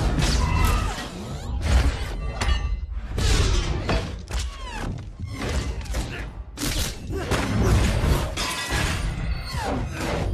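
Movie battle sound effects for a fight with metal robots: a rapid string of hits, metallic crashes and shattering, over a low rumble, with the film's score playing underneath.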